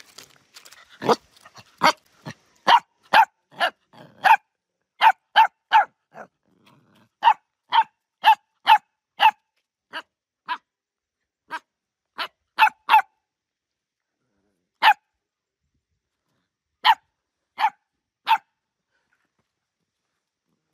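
Puppy barking: short, sharp, high-pitched barks, about two a second at first, then more spread out, the last few several seconds apart.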